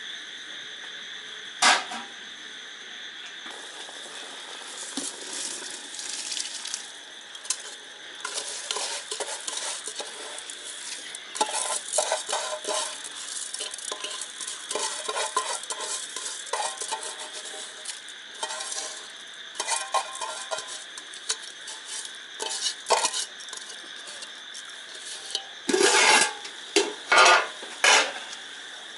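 Aluminium cooking pots and utensils clinking and scraping as the contents of one pot are tipped into a pot of simmering vegetable broth and the rice is stirred, with a sharp knock about two seconds in and the loudest scraping clatter near the end. Crickets chirp steadily behind.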